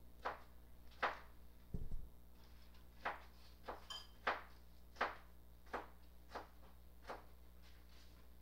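Faint steady electrical hum with soft clicks or taps about once a second and a low thump about two seconds in.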